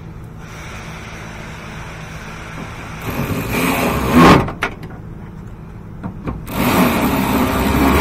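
Power ratchet on a socket extension, run in two bursts of about a second and a half each, tightening the outer door handle bolts until they seat. Each burst gets louder toward its end.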